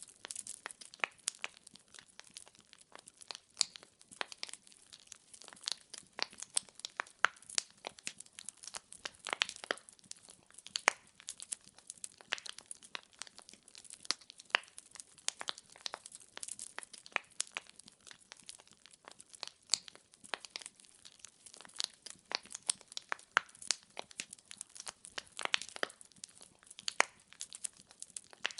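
Wood fire burning, with dense, irregular crackling and popping of burning logs over a soft hiss.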